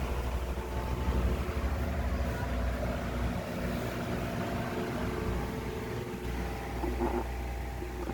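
Britânia Super Turbo Silencium electric fan running steadily, a motor hum with a low rumble that drops away for a few seconds in the middle.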